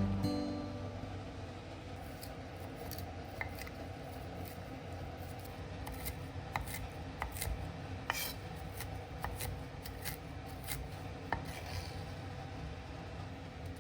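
Quiet kitchen work: a steady rubbing noise with scattered light clicks and taps of utensils.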